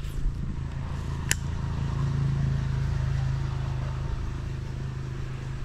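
A motor engine hums steadily, swelling a little about two seconds in and then easing off. There is a single sharp click just over a second in.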